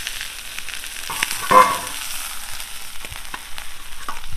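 Pieces of fish frying in hot oil in a flat iron pan, a steady sizzle, with small scraping ticks as a metal spatula lifts the fried fish out. There is one brief louder clatter about a second and a half in.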